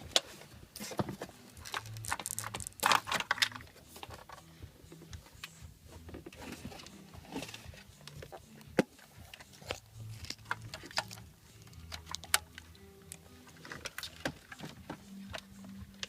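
Car stereo head unit being pulled from the dash and swapped: scattered clicks, knocks and rattles of plastic trim, the unit and its wiring connectors being handled, with a denser run of louder knocks a few seconds in.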